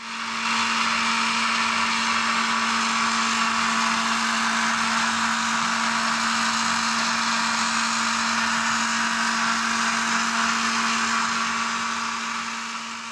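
Electric blender motor running steadily at speed, a steady whirring with a constant hum, now working again after its loose switch screw was tightened. It fades out near the end.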